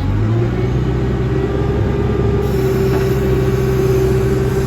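A heavy engine revs up in the first half second, then runs steadily at higher speed.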